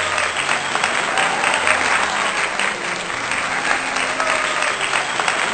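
Audience applauding: a steady, dense clapping.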